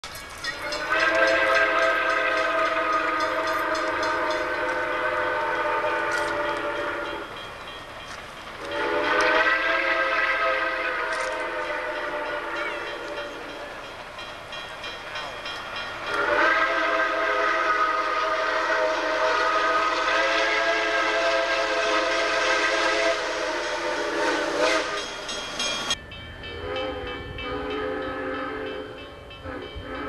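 Steam whistle of Reading T-1 4-8-4 No. 2102, several notes sounding together, blown in three long blasts, the third the longest; after a cut near the end it sounds again, quieter and shorter. It is not the Reading six-chime whistle the engine normally carries.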